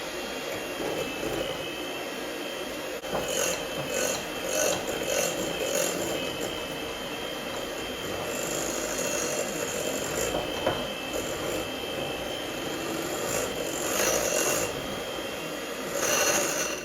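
Electric mixer running steadily with a high motor whine, its beaters beating cream cheese icing and scraping against the bowl now and then; it switches off at the very end.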